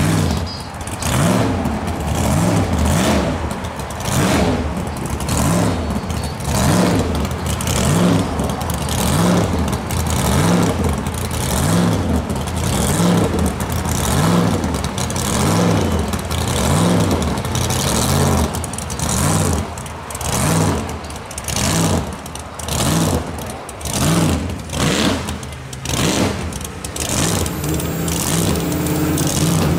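Classic car engines running as the cars pull away, a loud engine sound that swells and dips about once a second.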